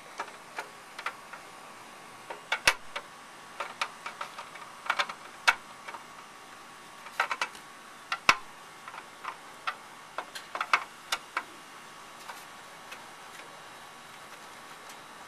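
Screwdriver backing the screws out of a lawnmower's plastic engine shroud: irregular sharp clicks and taps, several in quick clusters.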